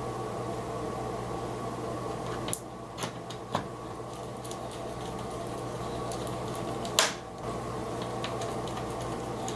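Four sharp clicks and taps from small laptop parts being handled and fitted during reassembly, the loudest about seven seconds in, over a steady low hum.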